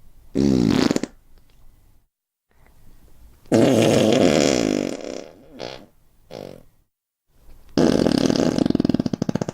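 Fart sound effects, three in turn: a short one about half a second in, a long one from about three and a half seconds that trails off in two short puffs, and a long one near the end that breaks into a rapid flutter.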